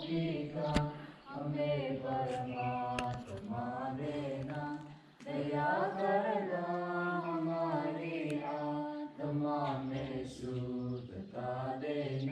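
A group of voices singing together in slow, long-held phrases, with brief pauses between lines.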